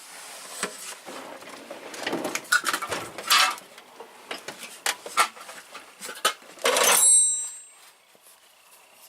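Steel sockets clinking and knocking together as they are handled in a tool box drawer, with a louder scraping rattle about seven seconds in that ends in a brief metallic ring.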